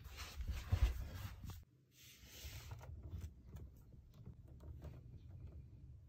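Rustling, knocks and small clicks of cables being handled at the rear ports of a desktop PC, over a low rumble. The sound is loudest at the start, with a heavier thump just under a second in. It breaks off sharply about one and a half seconds in, then goes on quieter.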